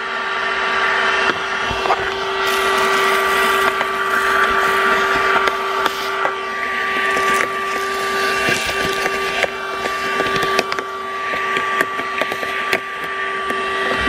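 Handheld 12-volt car vacuum cleaner running with a steady whine, its nozzle sucking dry porridge oats out of the cup holders with many small crackling clicks.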